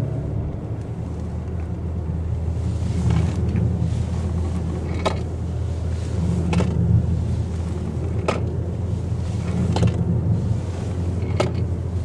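In-cabin drone of a Mazda 3 with the Skyactiv-X 2.0-litre four-cylinder petrol engine under way: a steady low engine and tyre hum. From about five seconds in, a short sharp knock comes about every second and a half.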